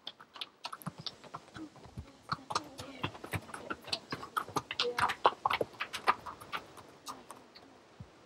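Hooves of two ridden horses walking across a stony yard: irregular clops and crunches, several a second, busiest in the middle and thinning out near the end.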